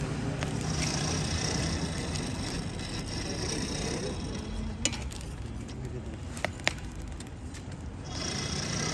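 Roadside street ambience with an engine running steadily, and three sharp clicks, one about five seconds in and two close together about a second and a half later.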